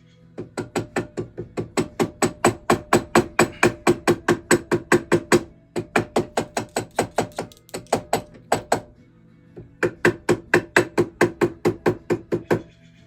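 Rapid hammer blows on the wire bird's nest against a ring mandrel, about five a second in three runs with two short pauses, each blow ringing slightly. The hammering forms the soldered, work-hardened end of the wire around the mandrel.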